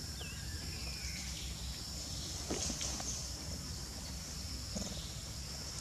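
Tropical forest ambience: a steady high-pitched insect drone, with one brief chirp just after the start and a few faint clicks.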